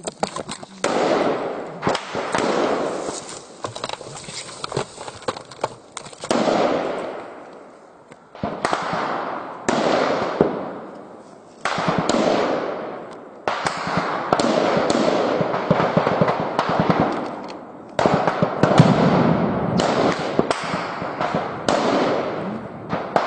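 Gunfire in a firefight: many rifle shots in quick clusters and bursts throughout, each cluster trailing off in an echo.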